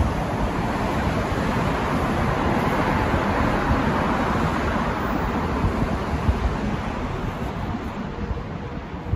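A vehicle passing on the street: its tyre and engine noise builds up, peaks midway and fades away.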